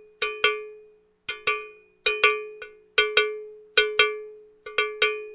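Cowbell struck in a steady rhythm, mostly in quick pairs of hits about every second, each hit ringing briefly with a bright metallic clank.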